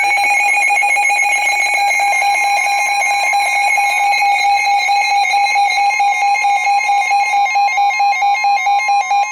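Emergency Alert System attention signal announcing a flash flood warning: a loud, steady electronic alarm tone, joined by a second, higher tone about two seconds in. Over the last couple of seconds it breaks into rapid pulses.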